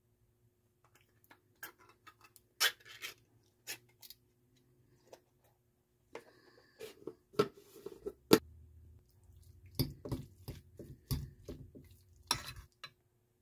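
Food-prep handling noises: a tuna can opened and its contents tipped into a ceramic bowl, then a mayonnaise jar opened and spooned into the bowl. Scattered clicks, taps and scrapes, the loudest being sharp clacks about two and a half and eight and a half seconds in, with a run of knocks near the end.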